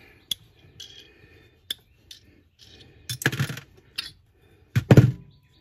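Two-part aluminium bait mold being handled and pulled apart: a few light metal clicks, then louder metallic clatter about three seconds in and the loudest clanks near the end.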